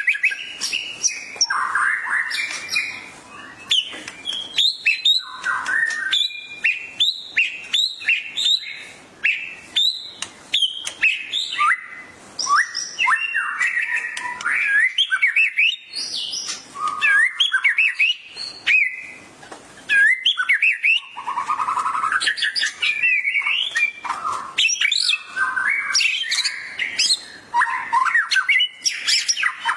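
White-rumped shama (murai batu) singing in full, lively song: a fast, varied run of whistles, chirps and trills with short breaks between phrases.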